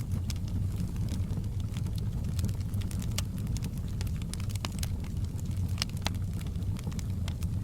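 Wood fire burning in a fireplace, crackling: a steady low rumble of the burning with irregular sharp pops and snaps from the logs, a few louder ones about three, four and a half and six seconds in.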